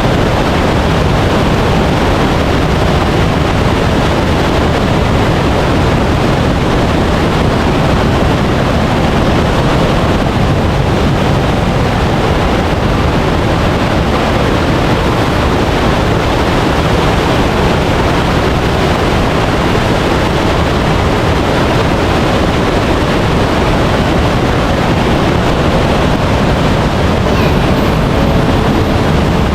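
Waterfall water roaring in a steady, loud, even rush.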